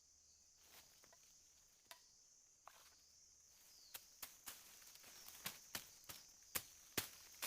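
Insects keep up a steady high-pitched drone while a series of sharp, dry taps or knocks sounds: a few scattered ones at first, then about two a second in the second half, the loudest near the end.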